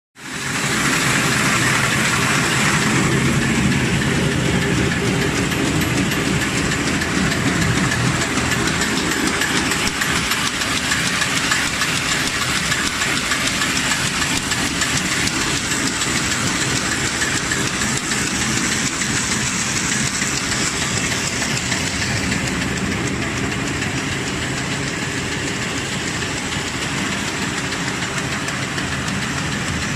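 LSB-200 automatic paper bag making machine running: a steady, dense mechanical clatter of rapid strokes with a thin high whine over it.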